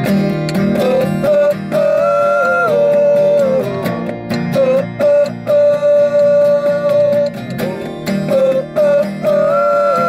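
Acoustic guitar strummed while men sing long held notes, sliding between pitches.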